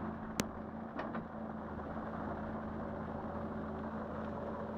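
An engine running steadily at a low hum, with a sharp click about half a second in and two fainter clicks about a second in.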